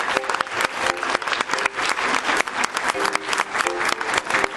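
Audience applauding, a dense run of steady clapping.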